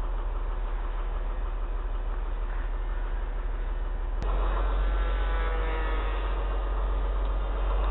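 Wind rumbling on the microphone with the whine of the RC plane's propeller motor in flight; about four seconds in the sound jumps louder and the motor whine becomes clearer, shifting in pitch as the plane passes.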